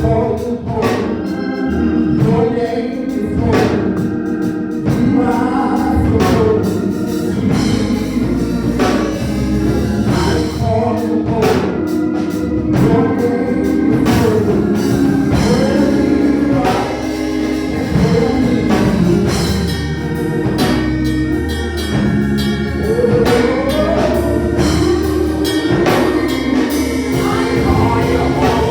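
Gospel music: an organ playing while voices sing, over a regular beat.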